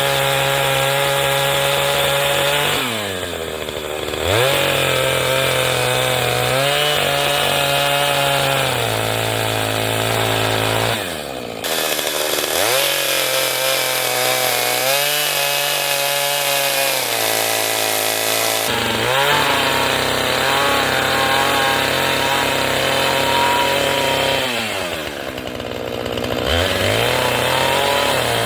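Chainsaw running at high revs, ripping lengthwise through a black walnut log in a chainsaw mill. The engine note drops briefly and climbs back three times.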